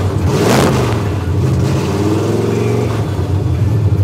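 Ford Mustang V8 engine rumbling, with a short rev blip about half a second in.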